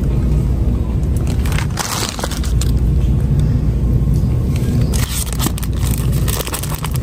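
A steady low rumble, with crackling and clicking of plastic packaging when a packet of rubber dishwashing gloves is handled and pulled off a peg hook, about two seconds in and again near the end.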